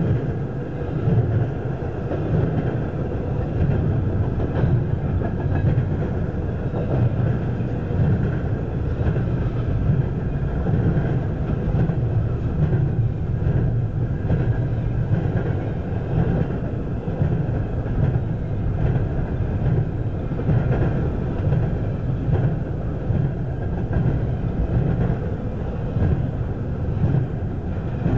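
Double-stack intermodal freight train of container well cars rolling past: a steady rumble of steel wheels on the rails, with repeated wheel clicks and clatter.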